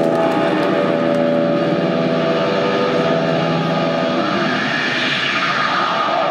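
Electric guitar ringing in long held feedback tones through the stadium amplifiers, over crowd noise, just before the song's riff begins.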